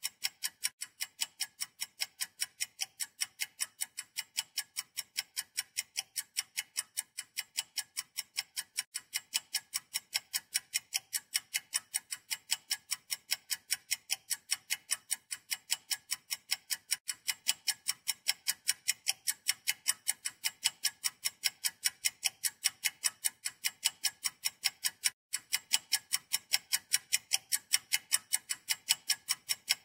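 Steady, rapid ticking: sharp, high clicks at an even pace of about five a second, broken once by a split-second gap near the end.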